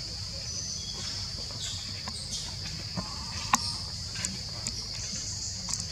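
Insects droning steadily at a high pitch, with a low rumble underneath and a few short clicks, the sharpest about halfway through.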